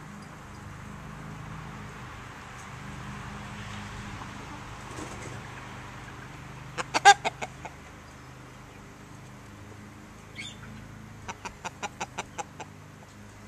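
Chickens clucking close by: a quick run of about six clucks about seven seconds in, the loudest part, then a single short call and another run of about eight clucks near the end, over a low steady background noise.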